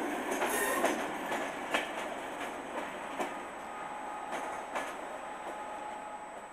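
Wheels of a Royal Mail train of red vans clicking over rail joints at uneven intervals as it rolls slowly away, the rumble fading as it goes, with a faint thin squeal from the wheels in the second half.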